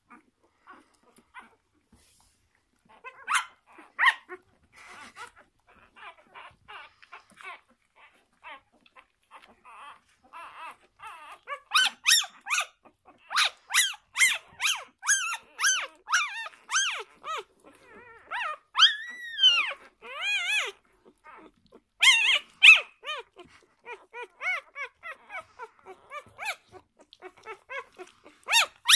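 Six-day-old newborn puppies squeaking and whining while they jostle to nurse: short high-pitched cries, a scattered few at first, then coming thick and fast from about twelve seconds in, with one longer whine that rises and falls about two-thirds of the way through.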